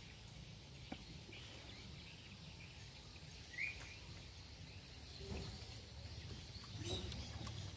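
Faint outdoor ambience: a steady low rumble, with a single short rising bird chirp about halfway through and a few soft knocks later on.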